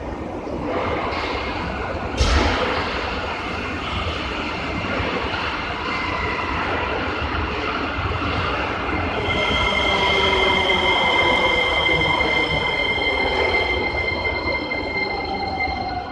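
Metro train pulling into an underground station and braking to a stop, with steady rumbling and a loud clank about two seconds in. From about nine seconds a high steady squeal sets in, while a lower whine falls in pitch as the train slows.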